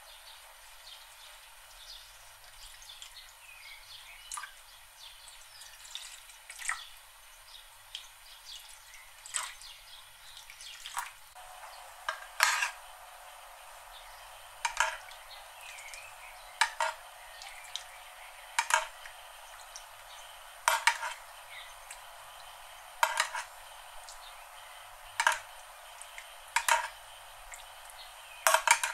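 Salt sprinkled over raw chicken drumsticks in an enamel roasting tray gives a faint patter of small ticks. Then, from about twelve seconds in, a metal spoon scoops liquid from the tray and pours it over the drumsticks. Each scoop makes a clink of spoon on enamel and a short splash, about every two seconds.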